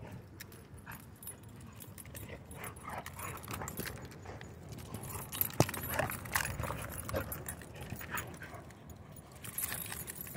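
A dog shaking and tugging a rope toy in the dirt: metal collar tags jingling and paws scuffling, with a sharp click about five and a half seconds in.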